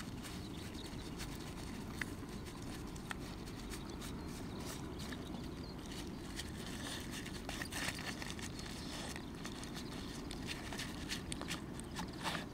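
A puppy eating from a paper bowl in the grass: scattered small clicks of its chewing and of the bowl shifting, coming more often in the second half, over a steady low background rumble.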